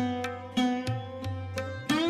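Background instrumental music in Indian classical style: a plucked string melody of sharp, ringing notes, several a second, over a low steady bass.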